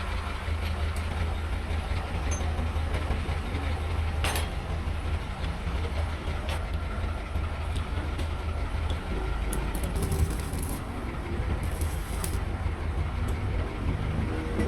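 Steady low rumble of an idling engine, with a few sharp metallic clicks and brief hissing noises.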